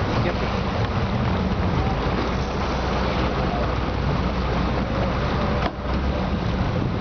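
Fishing boat's engine running steadily under heavy wind noise on the microphone, with a brief lull in the wind about a second before the end.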